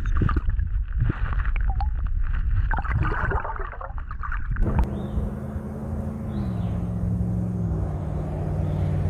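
Irregular knocks and rustling handling noise, then from about halfway an engine running steadily, its hum stepping down in pitch twice.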